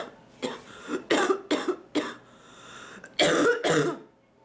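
A woman's coughing fit: a quick run of short coughs, then a longer, louder bout of coughing about three seconds in that stops shortly before the end.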